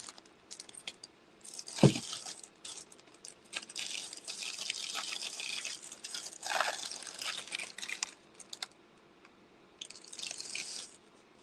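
Rustling and crinkling from props and packaging being handled, in irregular stretches. There is a single sharp knock about two seconds in and a short pause around nine seconds.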